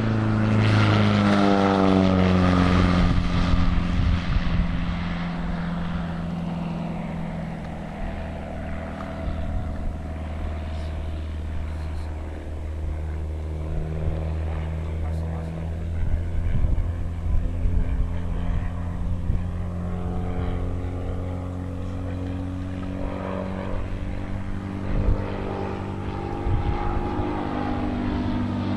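Fournier RF5 motor glider flying overhead under engine power, the propeller engine's drone falling in pitch as it passes in the first few seconds and rising again as it comes back near the end.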